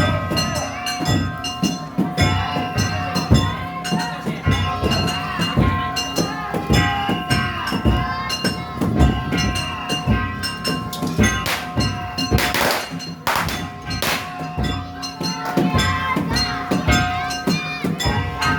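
Daijayama festival music: taiko drums and metal gongs struck in a fast, steady rhythm, with long held high notes sounding over them.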